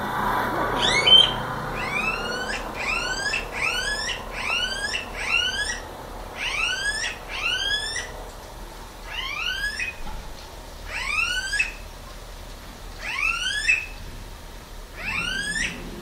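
Guira cuckoo (anu-branco) calling: a series of loud, rising whistled notes, at first about two a second, then in pairs about every two seconds.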